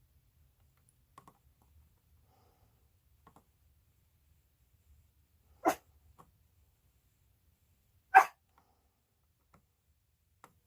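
Dog barking twice, two short loud barks about two and a half seconds apart, with a few faint ticks between them.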